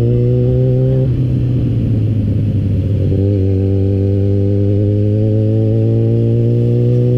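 Yamaha motorcycle engine running as the bike is ridden at steady town speed. About a second in, the even engine note breaks up for around two seconds, then settles back to a steady drone that edges slightly higher near the end.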